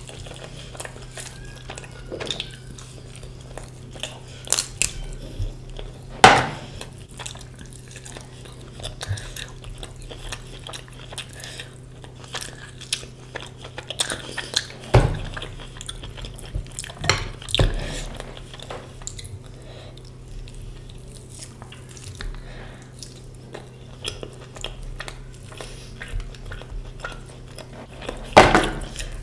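Mukbang eating sounds: chewing and mouth noises with frequent small clinks of a utensil against a plate, and a few louder clatters spread through. A faint steady low hum runs underneath.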